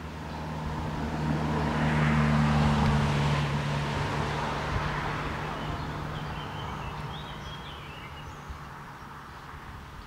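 A road vehicle driving past: engine hum and tyre noise swell to their loudest about two to three seconds in, then slowly fade away.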